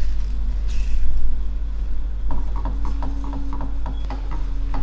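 Spatula scraping and pushing eggs around a worn nonstick frying pan, a quick run of short scrapes from about halfway through, over a steady low hum. The pan's coating is going and the food is sticking.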